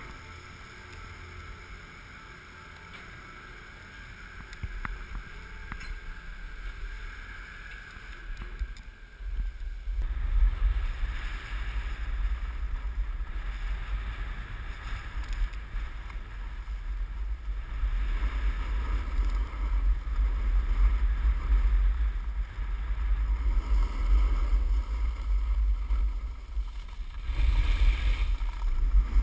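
Wind buffeting an action camera's microphone and a snowboard sliding over packed snow. The sound is quieter at first, then becomes a loud low rumble about ten seconds in as the board picks up speed downhill.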